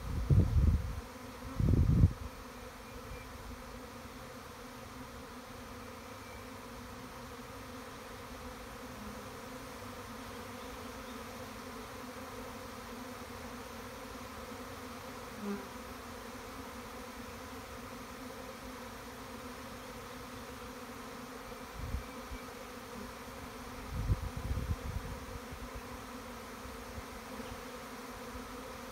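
Steady, even hum of a honeybee swarm flying thickly around a hive box as the swarm moves in. A few low thumps come in the first two seconds and again near the end.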